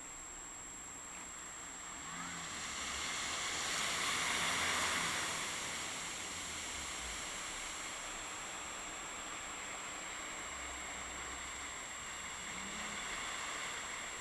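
Traffic noise from a street: a car passing, its tyre and road hiss swelling to a peak about four seconds in and then easing off, with another smaller rise near the end.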